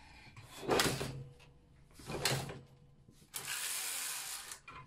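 Silver Reed knitting machine carriage pushed along the needle bed: two short knocks, then a noisy run of about a second near the end. The newly fitted sponge bar holds the needles tight, so the carriage moves stiffly.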